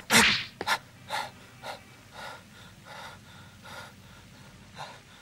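A cartoon character's breathing: two loud huffs at first, then a string of fainter breaths about every half-second to second that die away.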